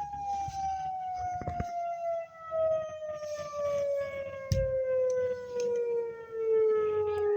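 Flood warning siren winding down at the end of a test: its single tone slides slowly and evenly down in pitch, swelling and fading in loudness as it goes. Two low thumps sound along the way.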